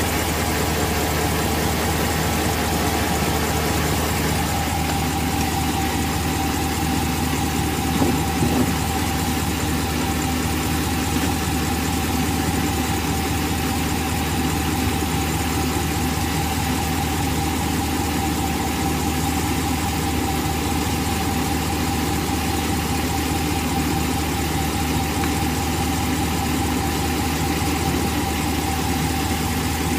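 Ram 1500 pickup's engine idling steadily, heard from beneath the truck. It is kept running so that the ZF 8HP70 eight-speed automatic's fluid level can be checked warm, at about 40 °C.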